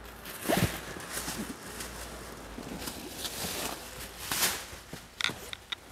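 Large plastic sacks rustling as cardboard cartons are handled and packed into them, with two louder bumps, one about half a second in and one after four seconds, and a few sharp clicks near the end.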